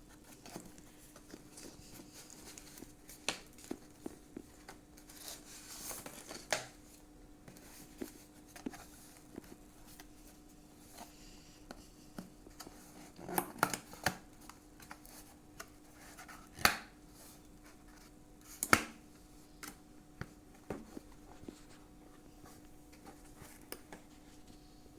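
Hands unpacking a takeaway meal: rustling of packaging and scattered sharp clicks and knocks of the food boxes being handled and opened, a few louder knocks about halfway and two-thirds through.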